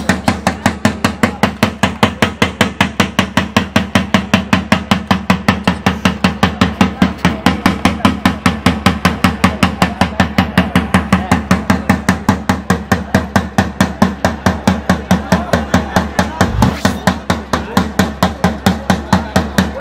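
A large shoulder-slung drum beaten with a stick in a fast, steady, unbroken beat of about four to five strokes a second.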